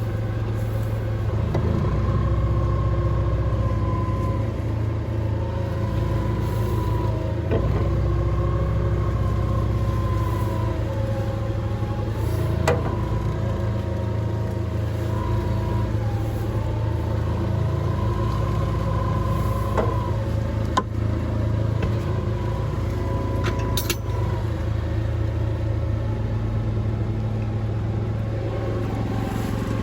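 Truck engine running steadily at low speed, with a whine that slowly wavers in pitch and a few light knocks and clicks.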